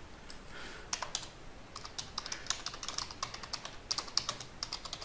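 Typing on a computer keyboard: a quick, irregular run of key clicks starting about a second in, as caption text is deleted and retyped.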